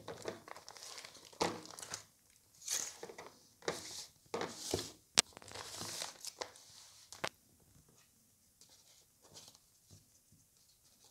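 Plastic courier mailer crinkling and rustling as a hand grips and pulls at it, trying to tear it open, with a sharp click about five seconds in. The handling dies down to faint rustles over the last few seconds.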